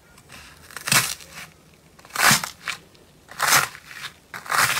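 Fingers pressing into pink slime studded with foam beads and breaking its dried top crust, four presses about a second apart, each a short burst of cracking and squishing.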